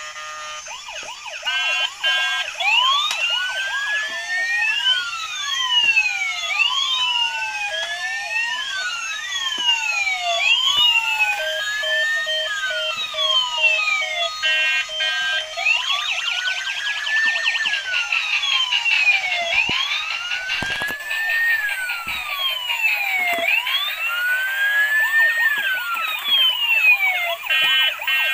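Electronic siren sounds from battery-powered toy emergency vehicles, a toy ambulance and a toy fire truck, played through small speakers. Two slow rising-and-falling wails overlap, with short bursts of stepped beeping tones now and then.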